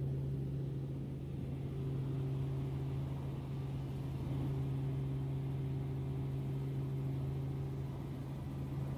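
Steady drone of a light helicopter's engine and rotors heard from inside the cabin as it comes in to land: an even low hum with fainter higher tones above it.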